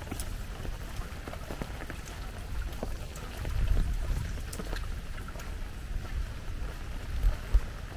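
Steady rain, with scattered drops tapping close by over a low rumble. Two sharper knocks stand out near the end.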